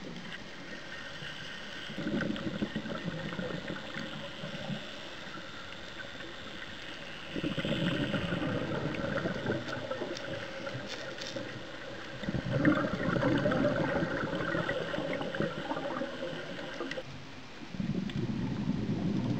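Scuba regulator breathing heard underwater: the diver's exhaled bubbles rumble and gurgle in long bursts about every five seconds, with quieter hissing inhalations between.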